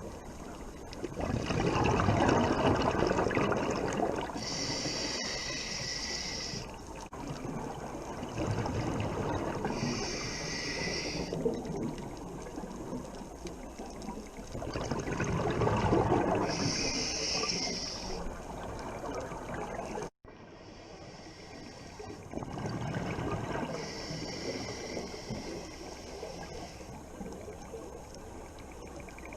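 Scuba diver breathing through a regulator: a bubbly rush of exhaled air about every six to seven seconds, alternating with a shorter high hiss on each inhale. The sound cuts off abruptly about two-thirds of the way through, then the breathing carries on.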